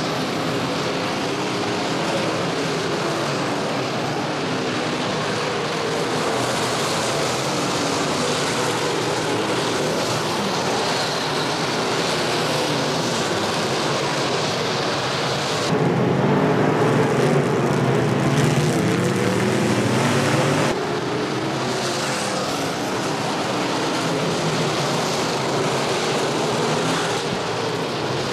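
Several IMCA Modified dirt-track race cars' V8 engines running at racing speed, their pitch rising and falling as they go through the turns. About halfway through, a louder, deeper stretch of about five seconds starts and stops abruptly.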